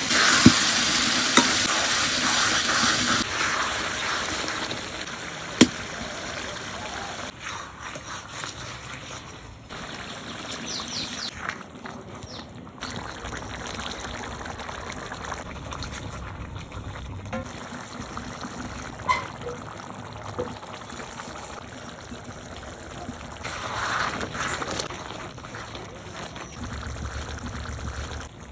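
Chicken curry sizzling in a pan while being stirred, with a few sharp clicks of the spoon against the pan. The sizzle is loudest for the first three seconds, then settles to a softer, steady frying hiss.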